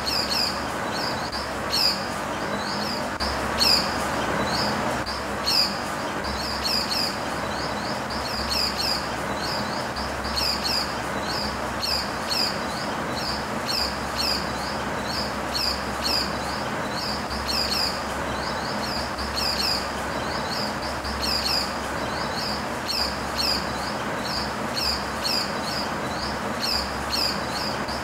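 Small birds chirping: short, high-pitched notes that fall in pitch, often in pairs or quick clusters, repeated a few times a second over a steady background noise.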